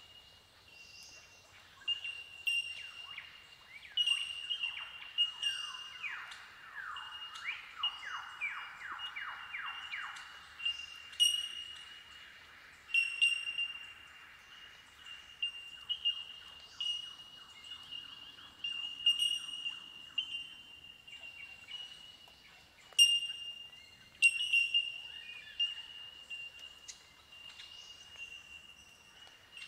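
Bell miners (bellbirds) giving their incessant ringing, bell-like 'tink' calls. Many overlapping notes on a high, steady pitch combine into a windchime-like chorus.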